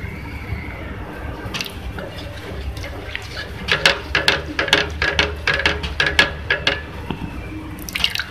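Wooden spatula knocking and scraping against a steel pot while stirring a thin semolina halwa mixture. There is a quick run of knocks, several a second, from about halfway through, over a steady low hum.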